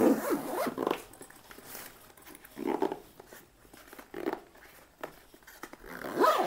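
Zipper of a hard-shell suitcase being pulled shut around the packed case in several short pulls, with pauses between them.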